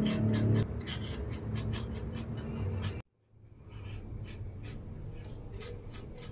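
Drawing strokes scratching across a surface in quick repeated strokes, several a second, over a steady low hum. The sound cuts out suddenly about three seconds in, then the strokes carry on more faintly.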